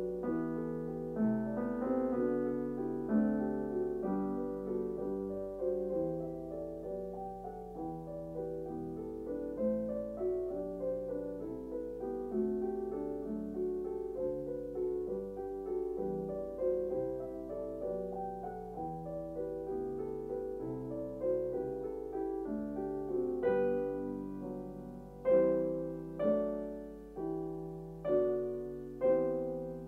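Solo piano background music, played slowly with notes ringing out, with a few louder struck chords near the end.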